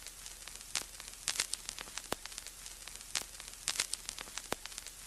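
Crackle and static like a record's surface noise: irregular clicks and pops over a steady hiss and a faint low hum.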